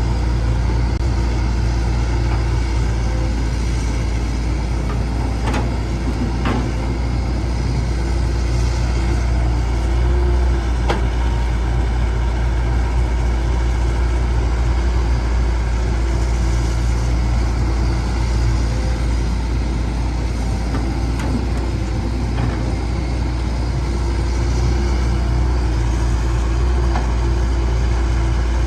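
Diesel engine of a Caterpillar 312C excavator running steadily while loading trucks, with a few light knocks along the way.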